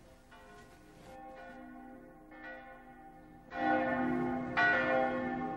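Church bells chiming, several bells struck one after another and ringing on over each other, growing louder from about three and a half seconds in.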